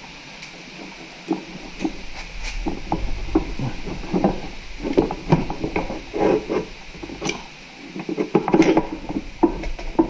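A motorcycle front axle being pushed and drawn out through the wheel hub and fork legs: irregular metal scraping with clicks and knocks as the shaft slides and catches.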